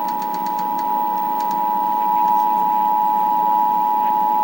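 Emergency Alert System attention signal: two steady tones sounded together (853 and 960 Hz), a continuous dual-tone alarm that marks the start of an alert, here a required monthly test.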